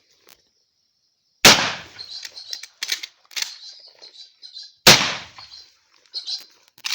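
Two shots from an Emerald 12-gauge shotgun, about three and a half seconds apart, each one sharp and very loud and ringing out for about a second.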